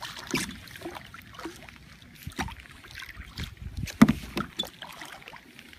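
Kayak paddle working in the water: irregular splashes and knocks of the paddle against the plastic hull, with the sharpest knock about four seconds in.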